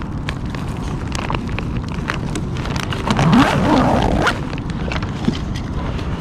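A steady low rumble of wind on the microphone, with scattered clicks and knocks of gear being handled in the kayak, and a brief louder rush of noise about three seconds in.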